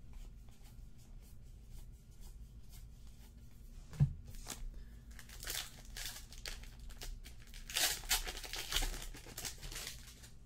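A trading-card pack wrapper being torn open and crinkled as the cards are pulled out, in crackly spurts that are busiest in the second half. One soft thump about four seconds in.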